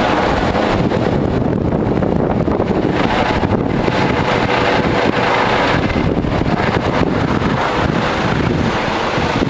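Trauma helicopter running steadily, its engine and rotor blended with loud wind buffeting the microphone.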